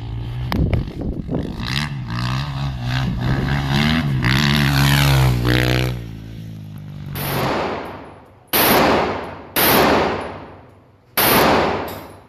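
Dirt bike engine revving and pulling away, its pitch climbing over the first six seconds. Then four gunshots in an indoor shooting range, roughly a second apart, each with a long echoing tail.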